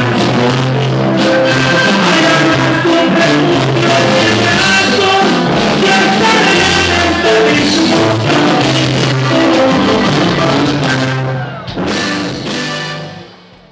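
Live regional Mexican band performing: a button accordion and guitar play under a male lead vocal sung into a microphone. The music fades out near the end.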